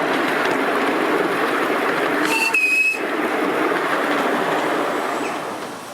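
Ride-on miniature steam locomotive running along steel track: a steady rush of running noise, with a short high tone about halfway through, fading near the end.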